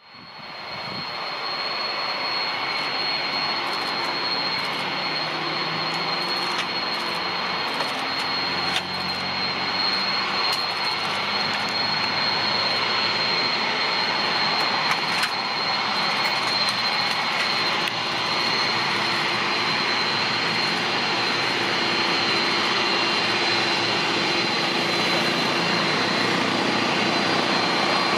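Boeing 747-400F's four jet engines running at taxi thrust as it taxis: a steady jet rumble with a high whine held on one pitch.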